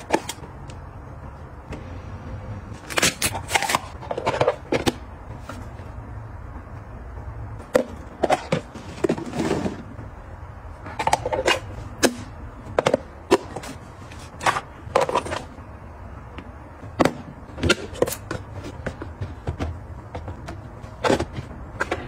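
Tupperware plastic food storage containers being handled: lids pressed on and pulled off, giving irregular sharp plastic clicks and taps, with a few longer scraping handling sounds.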